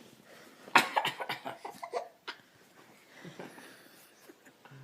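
A man coughing: one sudden loud cough about a second in, then a quick run of coughs lasting about a second and a half.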